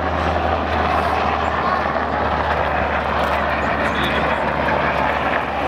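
Military helicopter flying low past and away, with a steady turbine and rotor noise. Its low rumble fades by about halfway through.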